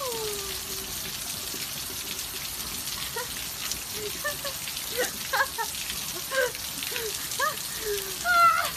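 Dog giving a string of short, pitched yips and whines, with a louder yelp near the end, over the steady hiss of rain falling on a paved path.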